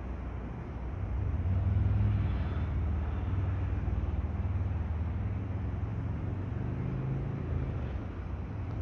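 Low drone of a motor vehicle's engine, swelling about a second in and then slowly fading.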